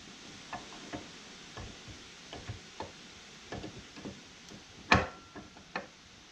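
Irregular small metal clicks and taps as a new piston is fitted onto a connecting rod held in a bench vise. One louder metallic clink with a brief ring comes about five seconds in.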